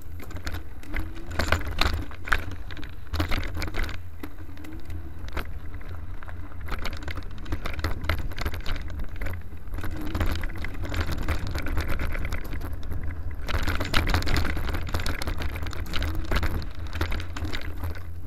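Mountain bike rolling fast over a rough dirt trail: a steady low rumble with constant rattling and clattering of the bike and camera mount, busier over the last few seconds.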